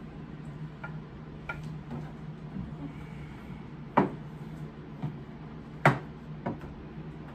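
Plates, serving spoons and utensils clinking as food is served at the table: scattered light clicks, with two sharper knocks about four and six seconds in, over a steady low hum.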